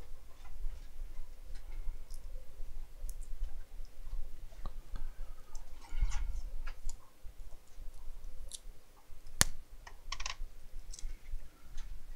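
Scattered small clicks and taps of hand tools and small parts being handled on a phone-repair bench, with one sharper click about nine seconds in.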